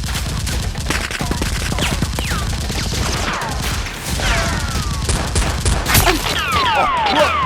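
A fusillade of gunfire sound effects: sharp shots mixed with falling, zinging whistles, coming in quicker succession near the end.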